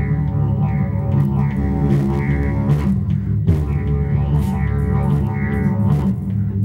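Didgeridoo droning a steady low tone, its overtones swelling and fading in a repeating rhythmic pulse, with a brief break about halfway through before the drone starts again.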